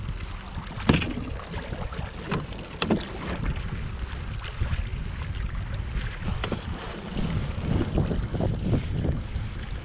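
Wind buffeting the microphone over water lapping against a kayak hull, with a few sharp knocks, the loudest about a second in.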